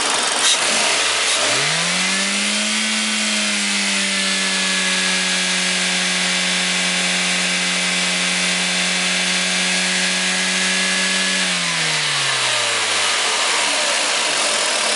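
Toyota Corolla 1.6-litre VVT-i four-cylinder engine revved by hand at the throttle from idle and held steady at about 4,000 rpm, below the rev limiter, then let back down to idle.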